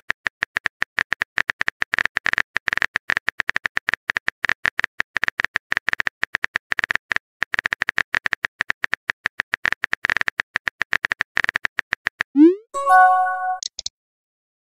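Rapid, even key-tap clicks of a phone keyboard sound effect as a text message is typed out. Near the end a short rising swoosh and a bright chime of several tones play as the message is sent.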